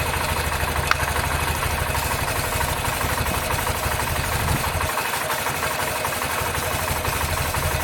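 Honda CB125F's 125 cc single-cylinder four-stroke engine idling steadily; its lowest rumble thins out about five seconds in.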